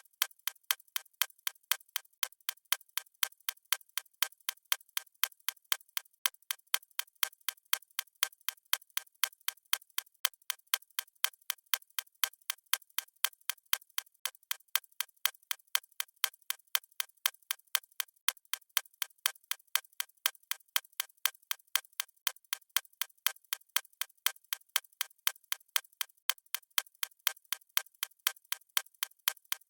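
Clock ticking sound effect: crisp, evenly spaced ticks at a steady pace, with no low thud.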